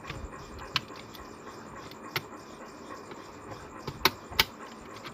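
Sharp plastic clicks and knocks as an electrical switch is pressed into an extension board's plate: a few scattered clicks, the two loudest close together near the end.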